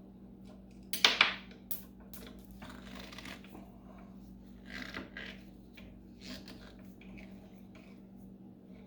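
Metal gearbox parts and screws being handled on a workbench: a sharp clatter about a second in, another click just after, then lighter clinks and rattles.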